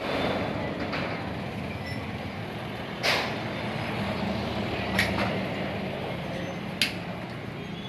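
Steady low mechanical rumble, like a running engine, with three sharp knocks about two seconds apart.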